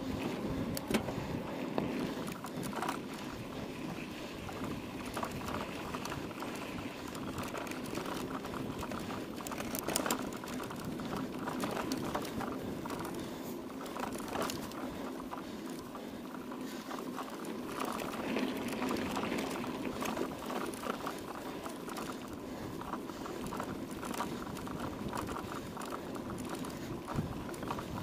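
Mountain bike ridden over a rough dirt and gravel trail: a continuous crackle of tyres on loose ground with dense rattling clicks and the odd knock from the bike.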